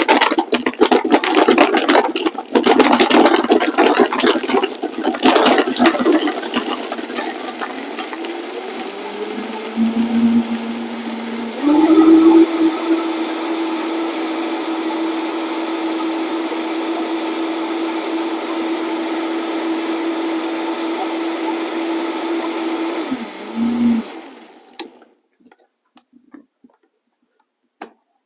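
High-speed countertop blender crushing ice with grapes and spinach: loud crunching and rattling at first, smoothing out as the ice breaks down into a frozen slush. The motor rises in pitch about ten seconds in and steps up again near twelve seconds as it is turned up to high, runs steadily, then winds down and stops near the end.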